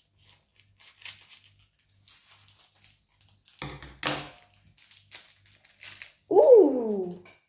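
Small foil blind bag crinkling and rustling as it is cut open with scissors and its contents pulled out, with a few sharp crackles about halfway. Near the end a loud vocal 'ooh' falls in pitch.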